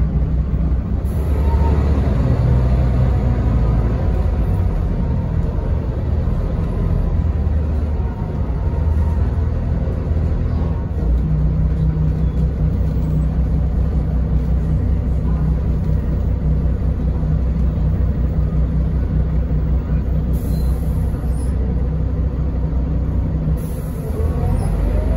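Inside a 2001 Mercedes-Benz O405NH city bus under way: the engine and drivetrain run with a steady low drone and road rumble, with a rising whine near the end.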